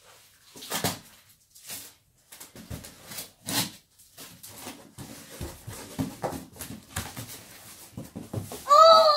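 A cardboard box being opened by hand: a run of rustles, scrapes and knocks as the flaps are pulled back and the contents handled. Near the end comes a loud, high squeal lasting about a second that rises then falls, a child's excited cry.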